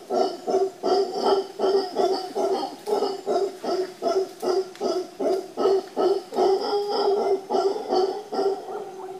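Mantled howler monkey howling: a long run of deep, rhythmic pulsed calls, about three a second, easing off slightly near the end.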